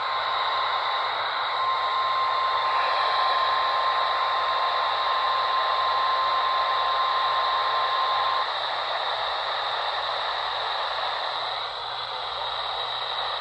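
Weather radio receiver hissing with static, with a steady single tone of about 1 kHz held for roughly nine seconds and then cutting off, leaving the static. The tone is the weather radio warning alarm tone that comes before a new alert is read out.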